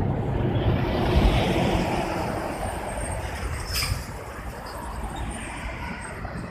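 Tractor-trailer truck passing on a wet road: tyre hiss and rumble swell about a second in, then fade as it pulls away, with one sharp clank near the middle.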